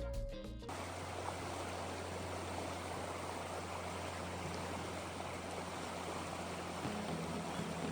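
Steady rushing of creek water, with no breaks. It comes in with a sudden cut about a second in, after the last notes of background music.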